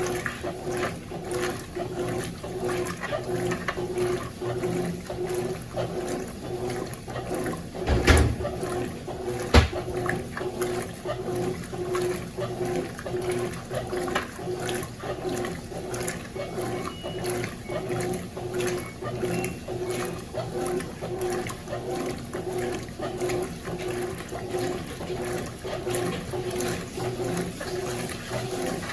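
Consul CWS12 top-loading washing machine in its wash cycle: a steady motor hum with rhythmic churning and sloshing of water and jeans in the drum. A dull thump about eight seconds in and a sharp knock a second and a half later.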